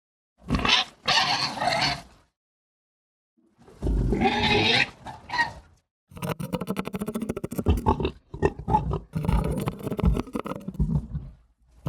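Designed animal-like creature vocal effects: two rough growls, each about two seconds long, then a long run of rapid, rough guttural pulses lasting about five seconds.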